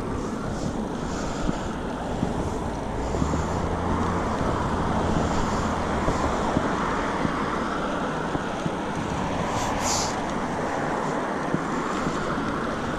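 Road traffic passing on a busy street, a steady rush of tyres and engines with a low engine hum swelling for a few seconds, mixed with wind buffeting the microphone. A brief high hiss sounds about ten seconds in.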